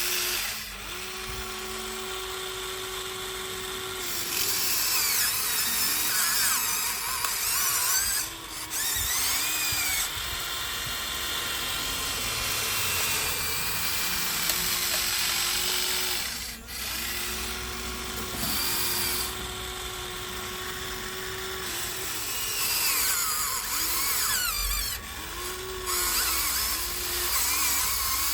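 Huina 1593 RC excavator's small electric motors whining as it digs and swings, several whines starting and stopping, their pitch rising and falling as the functions work under load.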